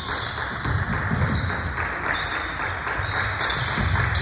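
Basketball play on a gym court: the ball bouncing on the floor, with repeated short high squeaks of sneakers.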